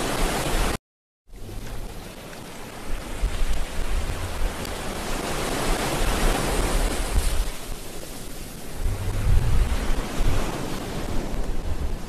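Wind buffeting the camera microphone in uneven low gusts over a steady rush of wind and surf. All sound cuts out for about half a second, about a second in.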